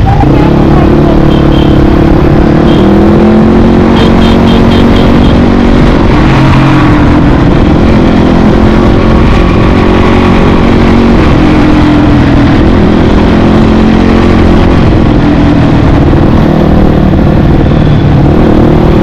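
Dirt bike engine running while riding, its pitch rising and falling with the throttle, under a heavy low rumble of wind on the microphone.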